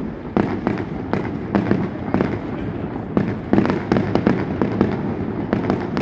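Fireworks display: an irregular, rapid string of bangs and crackles, several a second, with a few louder reports among them.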